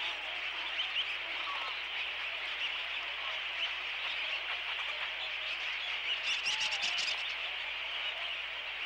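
A large flock of shorebirds calls continuously, a dense chatter of many overlapping short calls. About six seconds in, a quick run of sharp clicking calls lasts about a second.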